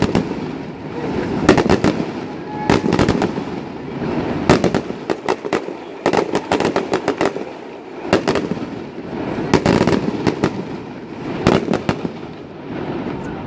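Fireworks display: aerial shells and comets bursting in rapid clusters of sharp cracks and bangs every second or two, over a steady background din between the volleys.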